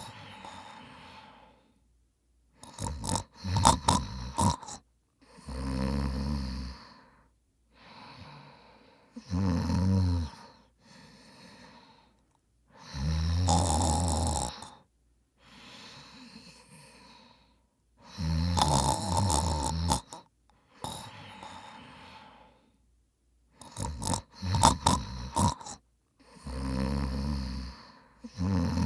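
A man snoring in deep sleep: about seven rough, low snores on the in-breaths, every three to five seconds, some of them rattling, with softer breaths out between.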